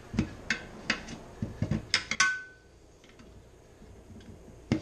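Long screwdrivers clinking and knocking against a mower wheel rim as they lever the tire bead over the rim edge: a quick run of sharp clicks over the first two seconds with a brief squeak, then quieter, and one more knock near the end.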